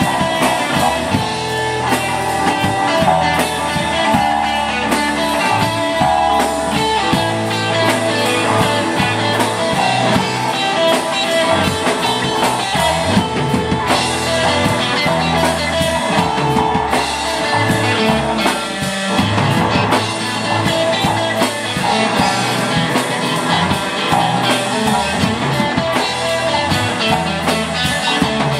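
Live rock band playing: two electric guitars through amplifiers over a full drum kit, steady and loud.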